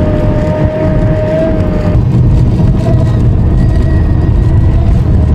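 Car driving along a country road, heard from inside the cabin: a steady engine and tyre rumble, with a steady high whine over it for the first two seconds that then fades down.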